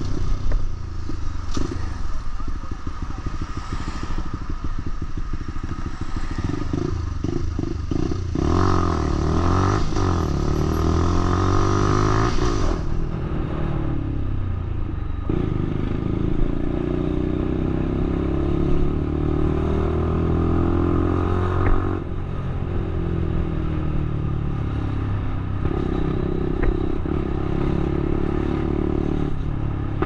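Lexmoto LXR 125 motorcycle with a Black Widow aftermarket exhaust, ridden on the road. The engine pitch climbs, then drops sharply several times as the rider works through the gears.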